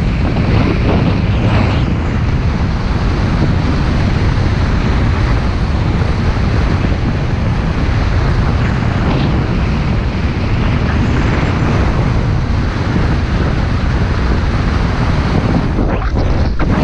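Loud, steady wind buffeting the action camera's microphone as the rider flies and skis fast down the slope under his speedriding wing, a dense rushing roar with no letup.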